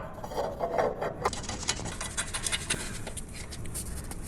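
Hand assembly of scooter trunk brackets and base parts: a string of light clicks and taps with scraping and rubbing as the pieces are handled and fitted together.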